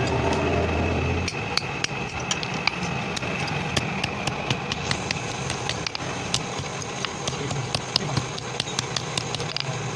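Irregular, sharp light taps of metal on metal, a few per second, over a steady engine-like hum. A low drone sounds in the first second or so.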